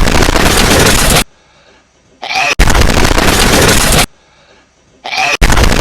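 A hedgehog sneezing over and over, heavily amplified and distorted: each sneeze is a short squeaky intake followed by a harsh blast of noise about a second and a half long, repeating about every three seconds.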